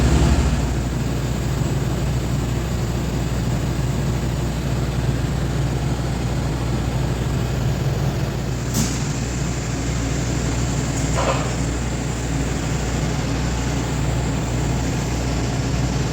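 Steady low hum and even hiss of TIG welding equipment running during a pass on stainless steel pipe, with a single sharp click about nine seconds in.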